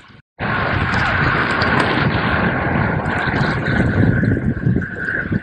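Wind rushing over the microphone of a bike-mounted camera on a moving road bike, with tyre and road noise underneath. It cuts in abruptly after a brief silence near the start and then runs steadily.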